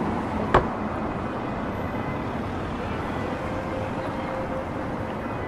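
City street ambience: a steady wash of traffic and pedestrian bustle, with one sharp knock about half a second in.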